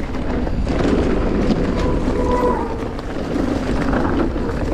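Mountain bike rolling down a leaf-covered dirt trail, with steady tyre and wind noise. About two seconds in, the disc brakes give a brief howl, a steady tone with a higher overtone. The brakes still need heat in them.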